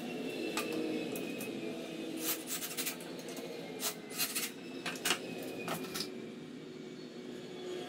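A run of sharp clicks and knocks, several in a row from about two to six seconds in, as pine boards and a wooden frame are handled, over a steady low hum.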